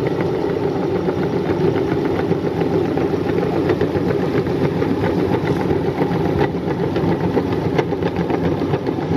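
Metal meat grinder grinding Oreo cookies into crumbs: a steady mechanical grinding with many small crackles of the cookies breaking up.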